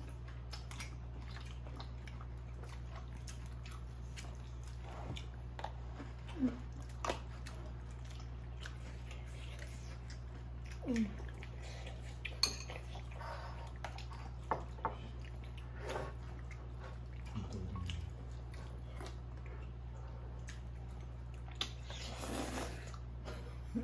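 People eating at a table: scattered light clicks of chopsticks against bowls and dishes over a steady low hum. Near the end comes about a second of slurping as noodles are sucked up.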